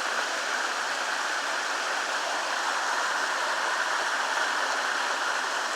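Creek waterfall running at its normal, calm flow: a steady, unbroken rush of falling water.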